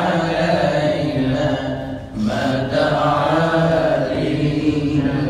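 A man singing an unaccompanied devotional gojol into a microphone, in long held, slowly bending notes, with a short break for breath about two seconds in.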